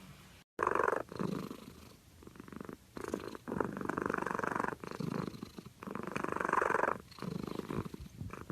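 A sleeping cat snoring: a sound on each breath, several breaths in a row about a second and a half apart.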